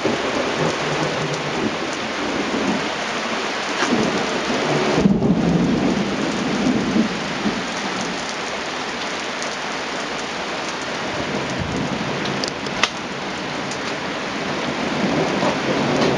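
Heavy rain pouring down steadily in a thunderstorm, with thunder rumbling, loudest about four to seven seconds in. A sharp click about thirteen seconds in.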